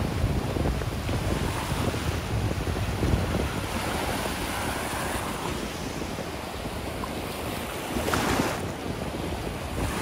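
Ocean surf breaking and washing up the beach, a steady rushing hiss, with wind buffeting the microphone. A louder rush of surf comes about eight seconds in.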